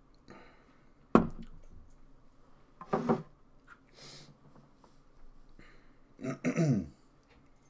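A man's short wordless vocal sounds close to the microphone: three brief sounds, the first sudden, the last falling in pitch.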